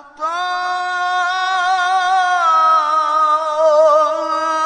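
A male qari's solo voice in melodic Qur'an recitation, holding one long ornamented note after a brief break at the start. The pitch steps down about halfway and wavers in small trills.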